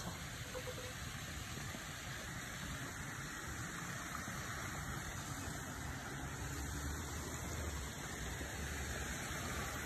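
Creek water rushing over rocks in small cascades, a steady rush that grows slightly louder toward the end.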